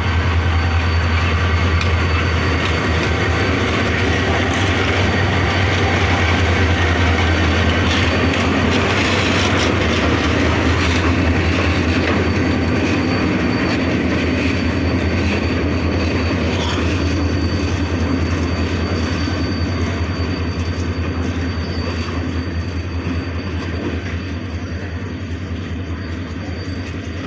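MEI-15 class diesel-electric locomotive passing on station tracks: its diesel engine drones with a strong steady low hum over wheel and rail noise. It grows quieter toward the end as it moves away.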